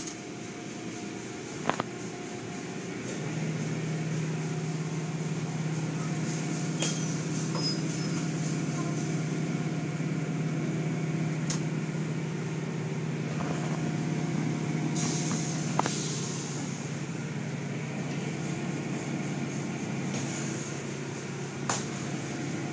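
Automatic tunnel car wash running: a steady machinery hum with water spray, and cloth wash curtains slapping over the car. A low drone sets in about 3 s in and eases after about 16 s, with a few sharp knocks scattered through and short spray hisses near 15 and 20 s.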